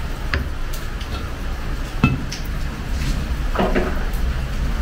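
Kitchen handling sounds: a few sharp clinks of metal pots or utensils, one about two seconds in with a short metallic ring, and a brief scraping rattle near the end, over a steady low hum.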